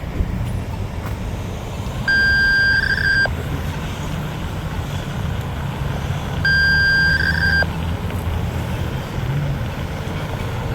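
A steady, high electronic beep, each about a second long with a slight warble at its end, sounding three times about four seconds apart over a continuous low rumble.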